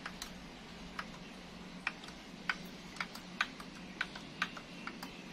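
Front-panel push buttons of a Magnet CD-10 CD player pressed over and over: a dozen or so sharp clicks, roughly two a second. The player powers up but does not respond to the presses: the buttons work only now and then.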